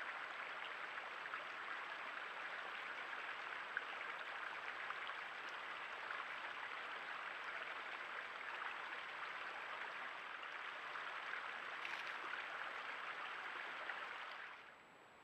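Creek water running with a steady hiss that drops away suddenly near the end.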